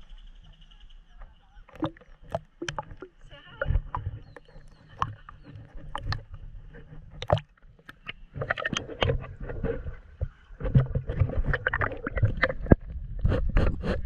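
Pool water sloshing and splashing against a camera held at the surface and dipped under, with muffled underwater gurgling and irregular knocks. It grows busier and louder in the second half.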